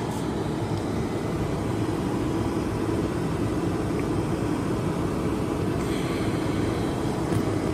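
A steady, even machine noise with a low hum, unchanging throughout.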